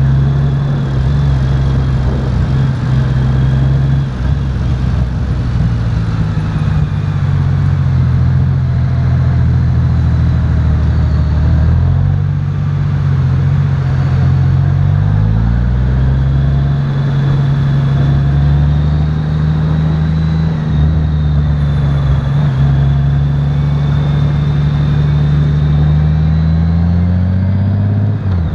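Honda Valkyrie F6C's flat-six engine running at road speed over a steady hiss. The engine pitch climbs under acceleration about halfway through and again near the end, dropping back each time at an upshift.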